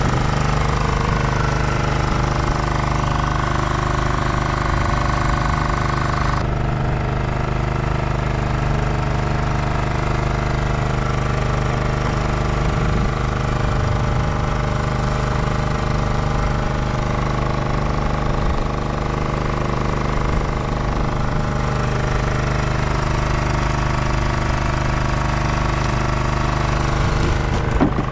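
Engine of a small fishing boat running steadily: a low, even drone that holds one pitch throughout.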